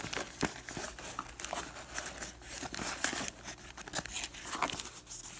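Rustling and scraping of a black nylon tactical bag being handled, with irregular small clicks and knocks among its straps and buckles.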